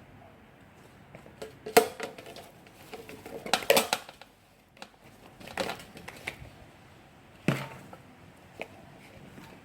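Handling noises: a few sharp knocks and clatters spread through, with some crinkly rustling between them, as sliced luffa and bags of sugar are handled around an earthenware crock.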